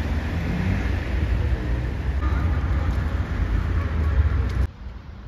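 City road traffic: a steady rumble of car engines and tyres, which drops suddenly to a much quieter street ambience near the end.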